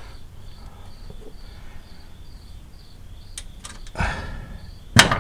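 Knocks and clinks of hands and tools working on a car's engine bay: a few sharp clicks, then the loudest sharp knock near the end. Under them run a faint steady hum and a faint high chirp repeating a few times a second.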